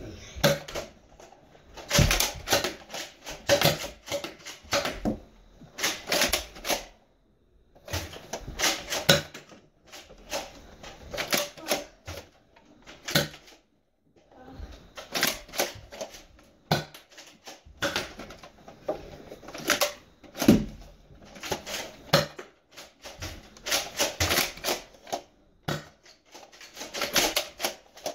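Bursts of rapid clicking and clattering, each lasting one to three seconds, with short pauses between them.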